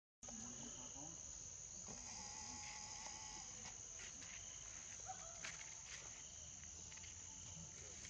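Faint, steady high-pitched drone of insects, with a few faint short tones over it.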